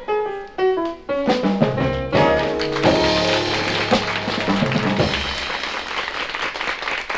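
A short band flourish with drums, opening on a quick run of falling notes, that ends about five seconds in and gives way to audience applause.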